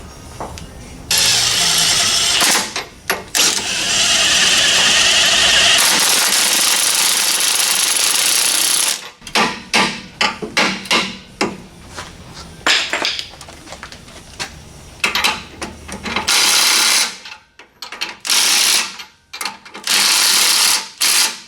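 Power wrench running nuts down onto new U-bolts: two long runs, then a series of short bursts as the nuts are snugged tight.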